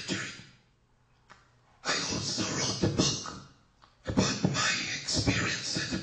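A man talking into a microphone, with a pause of about a second near the start and sharp consonant pops on the mic.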